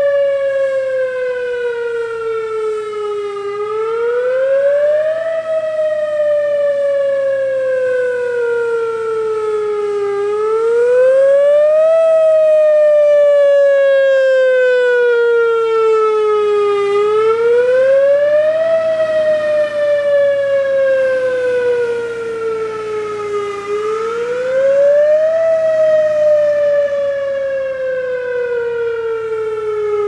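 Whelen WS-2000R rotating electronic siren sounding a wail: the pitch climbs quickly and then falls slowly, repeating about every seven seconds. The loudness swells and fades as the four-horn head turns.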